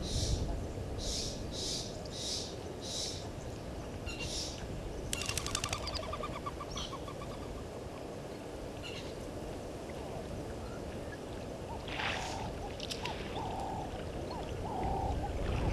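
Outdoor wildlife calls, chiefly birds, over a steady low rumble: short high chirps repeated about twice a second at first, a fast trill about a third of the way in, and a series of short lower calls near the end.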